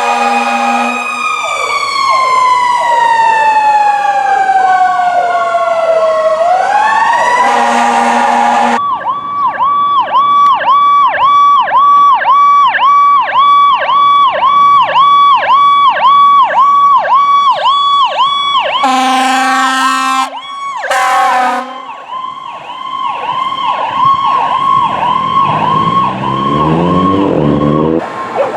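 Electronic emergency-vehicle sirens on ambulances and fire trucks. A slow wail falls and then rises again, and then the Powercall tone plays: quick repeated rising whoops, about two a second. Short horn blasts break in between the siren tones.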